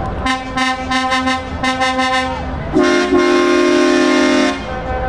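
Truck air horns sounding over a low engine rumble: a rapid run of short toots, then one long blast about three seconds in that lasts nearly two seconds.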